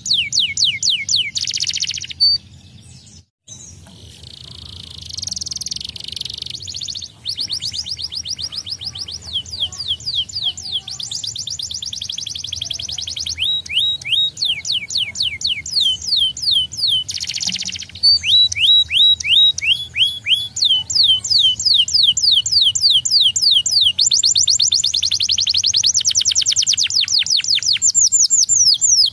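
Canary singing a long song of rapid trills, each a fast string of repeated sweeping notes, switching to a new trill every few seconds, with a short break about three seconds in.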